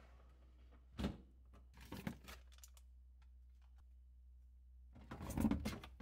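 Clear plastic refrigerator crisper drawer being handled and pulled out, its plastic knocking and rattling: a single knock about a second in, a short clatter around two seconds, and the loudest clatter near the end.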